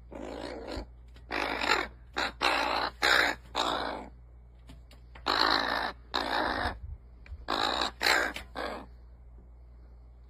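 Crow cawing at close range in two runs of loud, rough calls, about six calls in each, with a pause of about a second between the runs.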